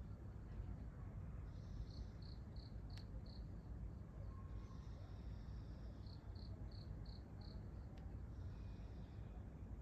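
A cricket chirping high and thin in two runs of about five short chirps, roughly three a second, over a steady low background rumble.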